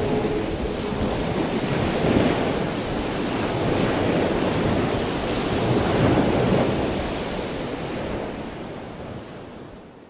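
Sea surf: waves washing in and drawing back in slow surges, fading away over the last few seconds.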